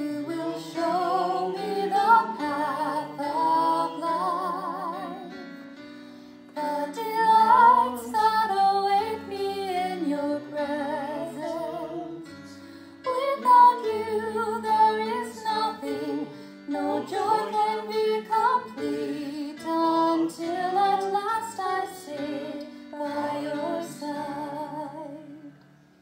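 A woman sings a sacred song with vibrato to piano accompaniment, in phrases with short breaks between them. It dies away near the end.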